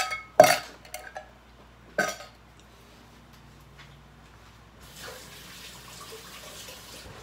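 A metal spoon clanks against a stainless steel mixing bowl at the start and once more about two seconds in. Near the end, a kitchen tap runs with a steady hiss for about two seconds.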